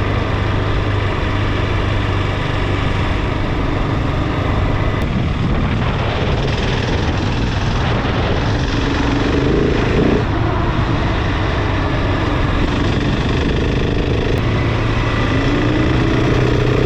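Adventure motorcycle engine running while the bike rides along a gravel track, with steady wind and tyre noise. The engine note rises as the bike accelerates about nine seconds in, and again near the end.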